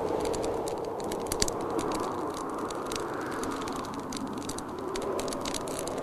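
Wood fire crackling with irregular sharp pops over steady blizzard wind that swells a couple of seconds in and then eases.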